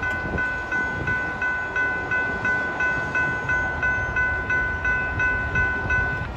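Railroad crossing warning bell ringing at about three strikes a second, over a low rumble; the bell stops near the end.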